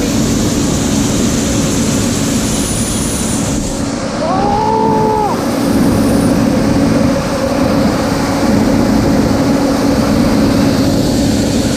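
Heavy farm machinery running steadily, a loud rumbling engine noise with a steady drone. A brief pitched sound rises and falls over it about four seconds in.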